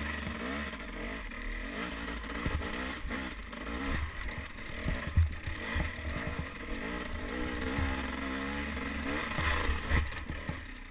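Dirt bike engine revving up and down as the bike rides and climbs a rocky trail, with sharp knocks and clatter from the bike hitting rocks.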